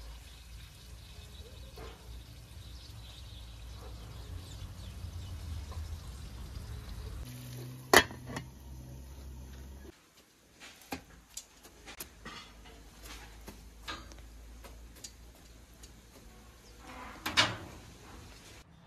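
Cooking over a charcoal grill: a soft steady sizzle from the aluminium pan, then one sharp metallic clank about eight seconds in, as of a lid set on the pan. Later come light clicks and scrapes of a metal tool stirring the coals under the pan, with one louder ringing scrape near the end.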